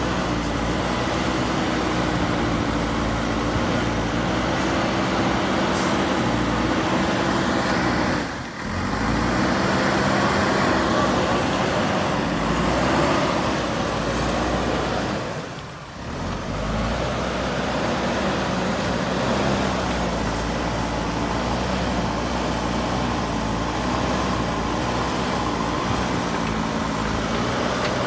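Diesel engine of a JCB 3DX Super backhoe loader running hard, its pitch rising and falling as the throttle changes under load. The sound dips briefly twice.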